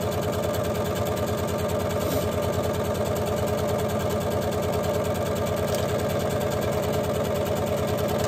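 Electric sewing machine running at a steady speed, straight-stitching through two layers of cotton fabric and cotton batting. A rapid, even chatter of needle strokes goes on without a pause.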